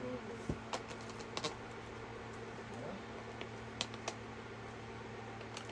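Scattered light clicks and taps of small paint tubes being handled and set into the plastic tray of an acrylic paint set, over a faint steady hum.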